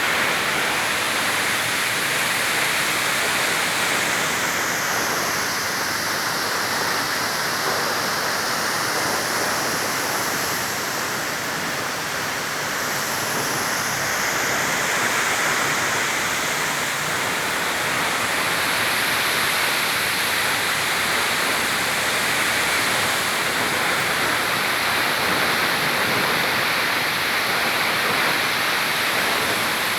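Waterfall: a steady, even rush of falling water, with no let-up.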